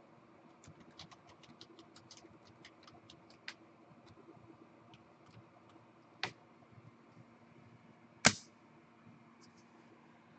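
Light, quick clicks of typing on a computer keyboard for the first few seconds, then a few isolated sharper clicks, the loudest about eight seconds in, over a faint steady hum.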